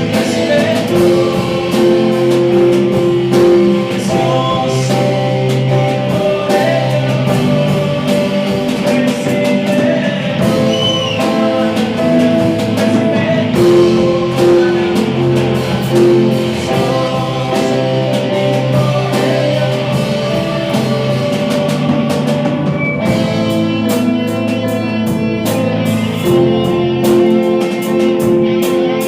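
Band music with guitar and drums, a worship song played through at a steady level; the playing gets fuller and busier from about 23 seconds in.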